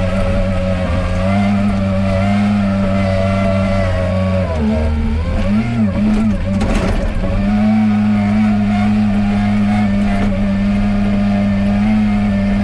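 Komatsu WA40 wheel loader's diesel engine running steadily at working revs. Its pitch drops and wavers for about two seconds midway, then settles back, with a short clatter about seven seconds in.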